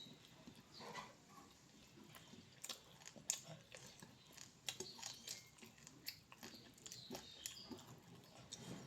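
Faint, close-miked eating sounds of someone chewing curry and rice, with irregular wet mouth smacks and clicks.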